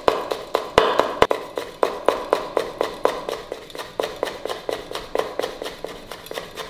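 Kitchen knife chopping on a wooden cutting board in a steady rhythm of about four strokes a second, each a sharp knock on the wood.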